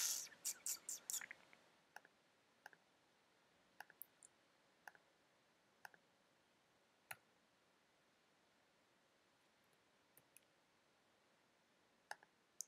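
Faint clicks of a computer mouse and keyboard. A quick run of about six clicks comes in the first second or so, then single clicks roughly once a second, with two more near the end.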